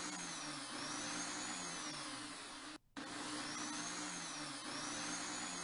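Electric drill clamped in a bench vise running steadily, spinning a fly-rod blank with a cork grip as a makeshift lathe, with a faint high whine that rises and falls. The sound cuts out for a moment about halfway through, then resumes.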